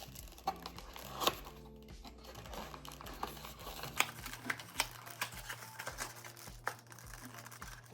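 Plastic ice cream packaging crinkling and crackling in hand as it is opened, with a string of sharp little clicks, thickest in the second half.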